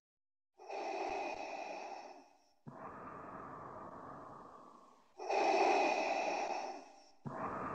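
Slow, heavy breathing: two deep breaths, each a drawn-in breath followed by a long breath out, the second breath louder than the first.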